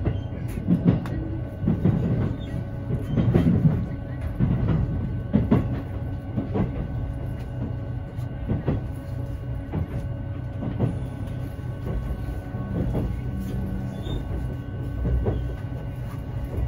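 Inside a JR 651 series electric train pulling into a station: a steady running rumble with the wheels clacking irregularly over track joints, most often in the first few seconds.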